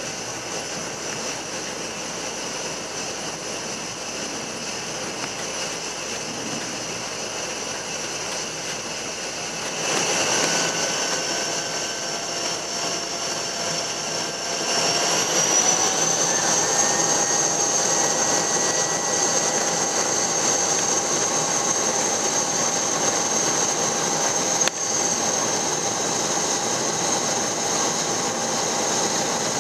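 Cessna 208 Caravan's Pratt & Whitney PT6A turboprop running while the aircraft moves on the ground, heard inside the cabin: a steady turbine whine over propeller noise. About ten seconds in it gets louder, and about five seconds later the whine rises in pitch and holds higher as power is added.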